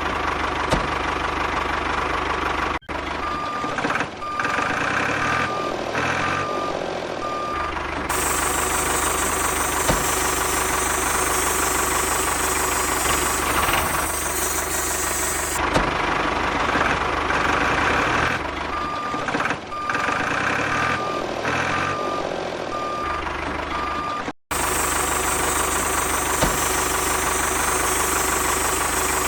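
Heavy vehicle engine running steadily, with a reversing alarm beeping at an even pace in two stretches of several seconds each. The sound cuts out abruptly twice.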